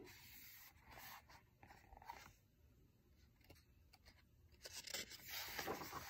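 Near silence, then from about four and a half seconds in a faint rustle and crinkle of a picture-book page being turned by hand.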